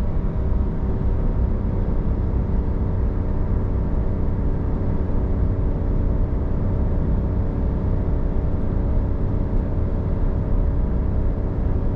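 3.0-litre Duramax LM2 inline-six turbodiesel running steadily under heavy load up a long mountain grade, with a deep road rumble and a constant engine drone. The engine is at its limit with no power left, exhaust gas temperatures running high.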